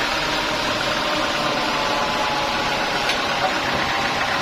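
Sawmill machinery running steadily: a continuous mechanical hum with a brief click about three seconds in.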